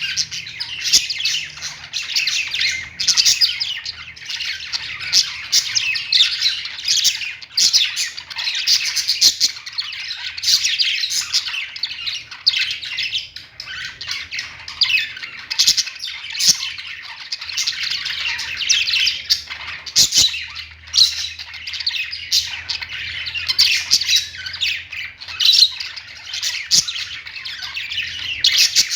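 Many birds chirping and squawking at once, a continuous overlapping chatter of calls with no pauses.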